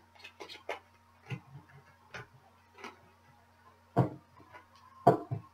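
Tarot cards being shuffled and handled by hand: a run of light, irregular ticks and flicks, with two louder knocks about four and five seconds in as the deck is set against the table.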